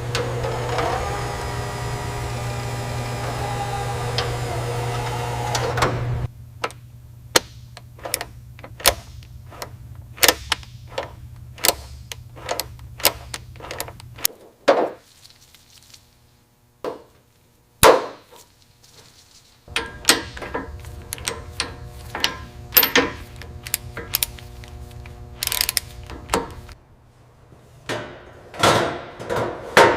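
Workshop tool sounds: a steady machine hum for about six seconds, then a run of sharp knocks, about one or two a second, with a pause of a few seconds in the middle.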